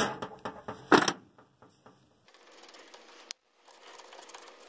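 Tools and parts knocking and clicking while a starter solenoid is taken apart: two sharp knocks in the first second, then a single click about three seconds in.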